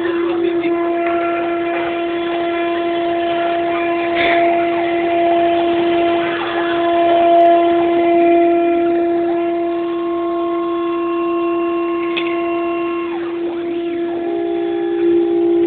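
CNC router spindle running at a steady whine while engraving a gold Alucobond aluminium composite panel, with fainter higher tones from the machine's motors starting and stopping as it moves.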